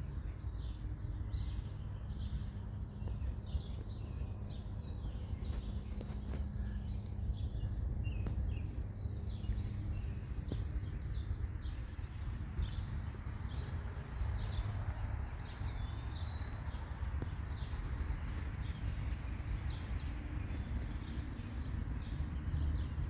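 Songbirds chirping and calling in short, scattered phrases over a steady low rumble.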